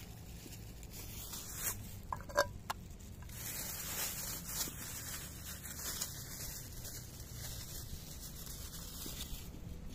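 Two cats eating wet canned cat food from a bowl at close range: moist smacking, licking and chewing. A few sharp clicks come about two seconds in, and a denser patch of wet crackle runs from about three seconds in until near the end.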